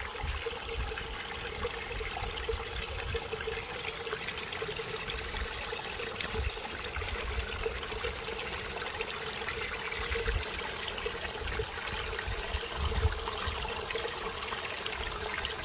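Small, shallow stream trickling and burbling steadily over rocks.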